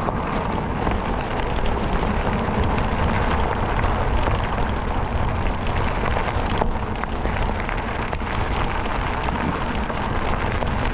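Steady wind rush over the microphone while a fat bike is ridden fast through snow: an unbroken rushing noise, heaviest in the low rumble.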